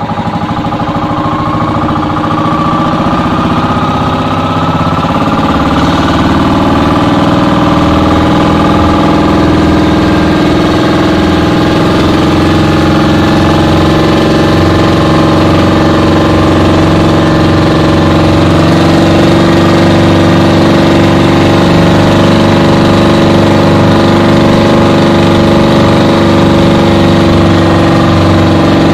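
Engine of a small motorized fishing boat running under way; it picks up speed over the first few seconds, then runs at a steady cruising pace.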